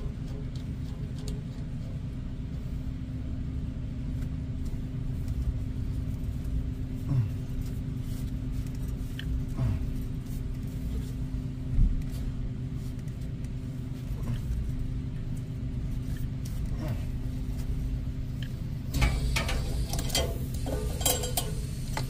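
Small tubing cutter being turned around a copper refrigerant liquid line, giving scattered light clicks and scrapes, over a steady low mechanical hum. Near the end the handling gets louder, with a cluster of scraping and rattling.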